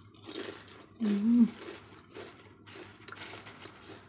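A short hummed "mmm" about a second in, then crisp, irregular crunching of thin fried potato chips being chewed in the mouth.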